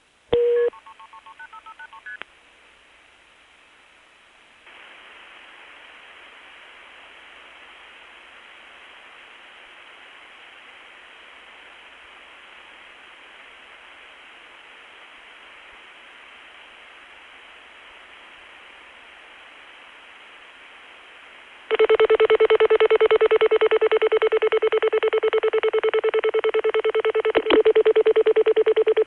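Telephone line audio of an international call being set up: a brief tone and a quick string of multifrequency (MF) signalling tones at the start, then a long stretch of quiet line hiss. About 22 seconds in, a loud, rapidly pulsing beeping tone comes on and runs on steadily, the kind of call-progress beeping heard from the French network while the selection proceeds.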